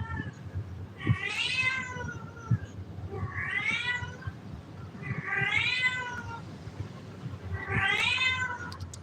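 Kitten meowing four times, about every two seconds, each meow a long call that rises and then falls in pitch.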